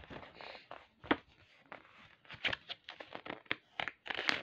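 Paper pages of a picture book being handled and turned: a run of rustles and scuffs with several sharp clicks and taps.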